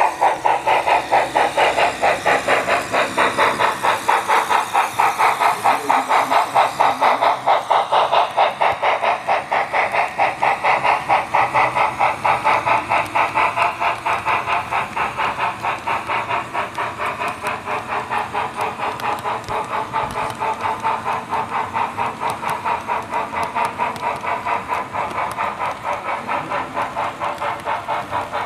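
Model freight train running past, a steady rhythmic clatter of about three beats a second over a running hum that dips slightly in pitch a few seconds in.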